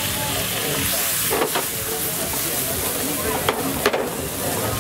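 Chicken and vegetables sizzling and bubbling in a hot non-stick wok, with a slotted plastic turner stirring and knocking sharply against the pan a few times.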